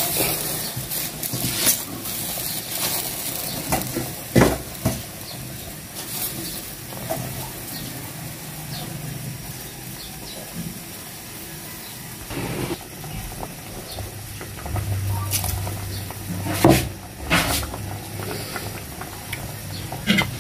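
Fish broth bubbling at a boil in an aluminium pot as sweet potato leaves are pushed into it, with a few sharp knocks from the pot or utensils.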